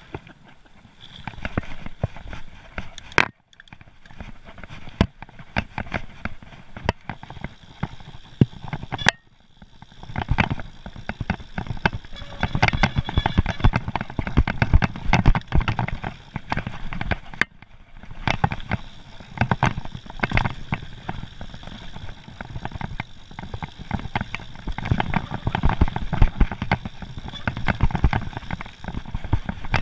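Mountain bike ridden hard down a rough dirt and rock trail: tyres rolling and crunching over stones and roots, with constant rattling and knocking from the chain and frame. It is quieter as the bike gets going, then busier and louder from about ten seconds in as the speed builds.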